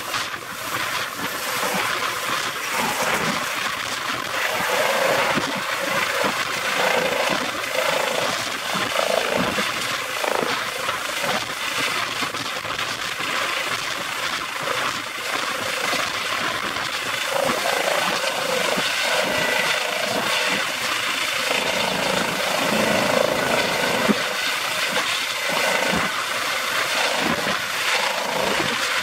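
Eurocopter EC135 P2+ helicopter hovering low and turning in place. Its twin turbine engines whine steadily over the noise of the main rotor and the shrouded Fenestron tail rotor.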